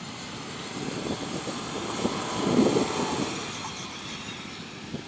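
Subaru Liberty wagon's boxer engine running as the car drives through loose beach sand, tyres churning and throwing sand, growing loudest about halfway through as it passes close.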